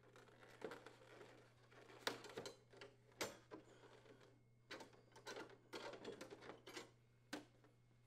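Faint, irregular taps and clicks of the ice machine door's inner liner panel being set down and shifted into alignment on the door frame, over a faint steady hum.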